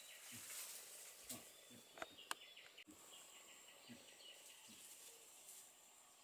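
Faint, short, low grunts from a pig, coming every half second or so at first and then less often, with two sharp snaps about two seconds in.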